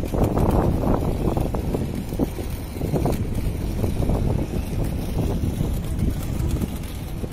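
Wind buffeting the microphone: a low, uneven rumble that swells and eases in gusts.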